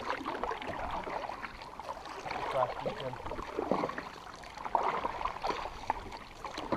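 Canoe paddles dipping and pulling through calm river water: an uneven run of swishes and small splashes.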